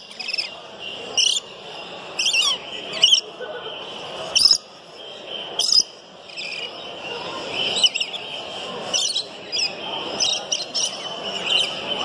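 Caged birds chirping and calling: short, sharp, loud calls about once a second over a steady high chatter of many small birds.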